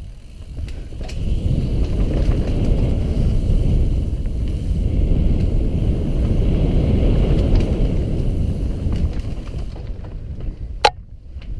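Wind buffeting a helmet camera's microphone on a mountain bike descending a dirt forest trail, with tyre noise and small rattles and clicks from the bike. A single sharp click near the end.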